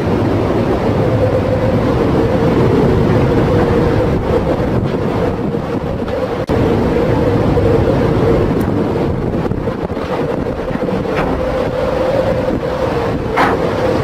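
Storm at sea: strong wind rushing over the microphone and heavy waves washing around a fishing trawler, over a steady droning hum.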